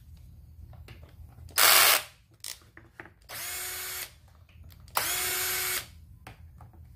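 Cordless driver backing out the screws of a chainsaw's top cover to get at the carburetor: one short, loud burst, then two separate runs of under a second each with a steady motor whine.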